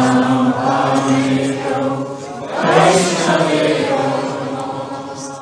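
A group of voices chanting a Sanskrit Vaishnava prayer in unison on long held notes. A new phrase starts loudly about two and a half seconds in, and the chant fades near the end.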